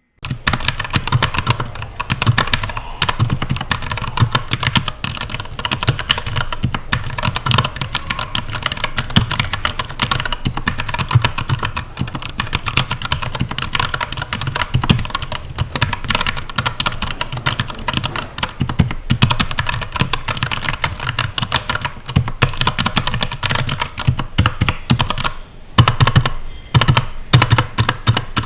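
Continuous fast typing on a Keychron K8 mechanical keyboard with Gateron Brown tactile switches in a plastic case: a dense run of key clicks and keycap clacks, with a brief pause near the end.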